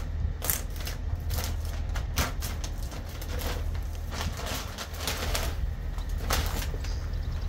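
Bag of crimped oats being torn open and handled, with irregular crinkling rustles and sharp crackles over a steady low rumble.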